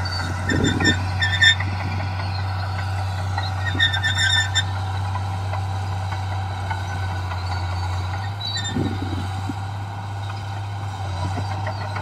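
Heavy earthmoving machinery's diesel engine running steadily, with brief bursts of high-pitched clatter about half a second in and again around four seconds in.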